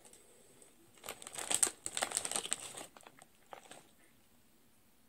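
Crinkling of a Lay's potato chip bag as a hand reaches in and pulls out a chip. It starts about a second in, lasts about two seconds, and a few fainter rustles follow.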